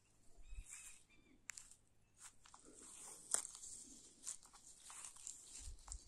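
Crackling and crunching of dry grass and dead bracken being stepped through, with two soft low thumps, one near the start and one near the end, and a few bird chirps in the background.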